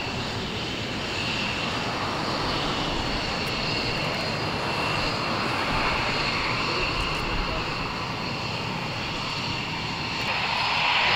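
F-15 fighter's twin jet engines running at taxi power: a steady rushing hiss with a thin high whine on top, growing louder near the end.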